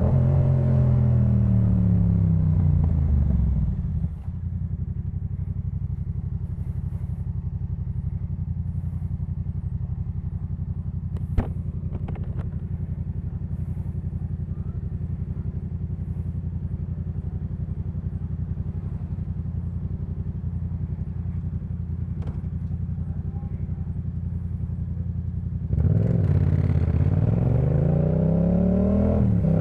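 Yamaha MT-07's parallel-twin engine through a Jeskap K4 full exhaust, slowing with its pitch falling for about four seconds, then idling steadily for about twenty seconds. There is a single sharp click around eleven seconds in. Near the end the engine revs up again as the bike pulls away, with a brief dip in pitch at a gear change.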